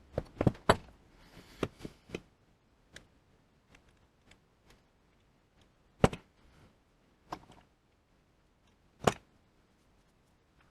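Scattered sharp clicks and knocks of metal lathe-apron parts and hand tools being handled during reassembly: a quick run of them in the first couple of seconds, then a few single louder knocks, the loudest about six and nine seconds in.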